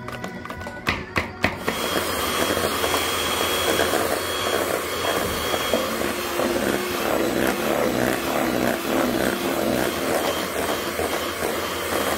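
A few sharp knocks, then a motor-driven machine running steadily, with a faint high whine over its first few seconds and a lower tone later on.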